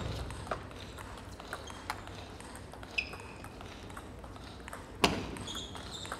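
Sneaker squeaks on a hardwood table tennis court, short high chirps from about three seconds in, with a few scattered light ticks and one loud sharp knock that rings out in the hall about five seconds in.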